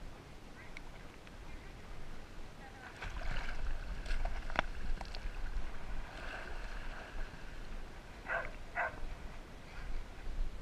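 Water sloshing and splashing around a GoPro camera riding on a swimming pit bull's back. A low rumble of water and wind against the camera housing starts about three seconds in, with a few sharp clicks and splashes.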